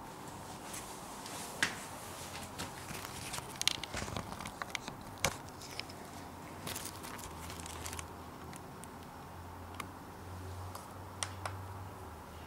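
Scattered clicks, taps and short rustles of an Acer Aspire 5520G laptop being handled, busiest in the first half, with a faint low hum coming in about halfway through.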